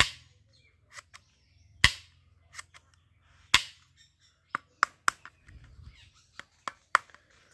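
Red plastic toy ball-gun pistol clicking and snapping as it is worked by hand: about a dozen sharp clicks, the loudest at the start, about two seconds in, about three and a half seconds in and near the end.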